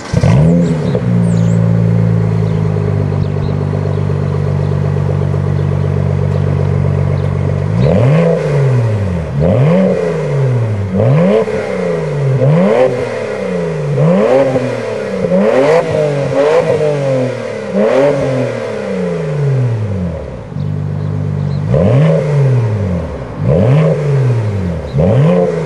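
BMW E92 335i turbocharged 3.0-litre straight-six, breathing through an Eisenmann rear exhaust section. It jumps to life with a brief flare, idles steadily for about eight seconds, then is blipped repeatedly, about once a second, each rev rising and dropping back. It settles to idle briefly, then is blipped several more times near the end.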